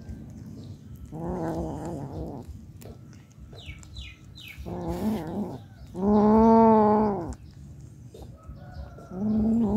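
Cat growling in low, drawn-out yowls over prey it is eating, four times, the longest and loudest about six seconds in. It is a possessive, food-guarding growl.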